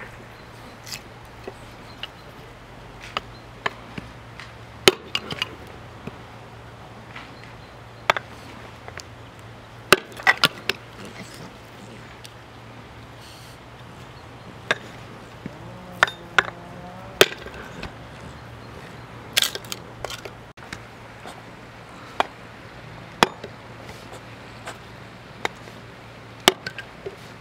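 Small hatchet splitting kindling: sharp knocks of the steel blade striking and biting into wood, at irregular intervals and sometimes several in quick succession.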